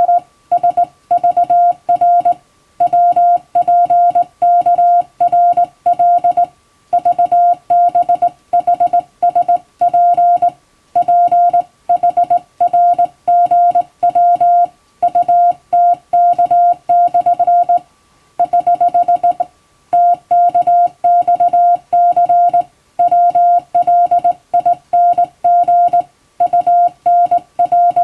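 Hand-keyed Morse code (CW): a single steady tone switched on and off in dots and dashes, with short gaps between letters and longer pauses between words, sending English text.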